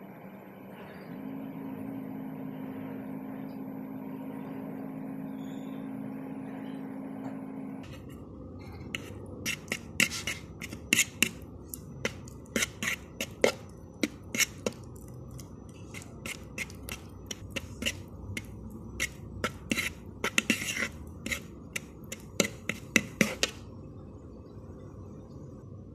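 Metal fork clicking and scraping against a mixing bowl in quick, irregular taps while butter and condensed milk are mashed together; the clicking starts about a third of the way in and stops shortly before the end. Before it, a steady low hum with a held tone.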